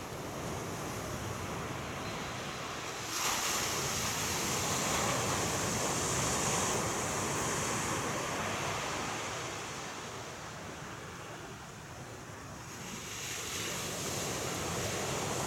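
Ocean surf washing onto the shore, a steady rush of breaking waves that swells about three seconds in, eases off briefly, then builds again near the end.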